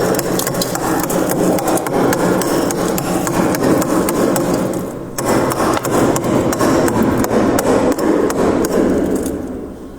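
Thick freezer frost being scraped and crunched, a dense run of rapid scratchy crunches with a short break about five seconds in, fading near the end.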